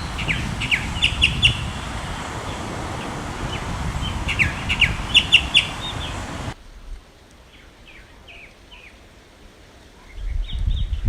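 Tropical mockingbird singing phrases of quick, sharp notes over a low rumble of wind on the microphone. About six and a half seconds in, the sound cuts to a quieter passage where the song is fainter, and the rumble returns near the end.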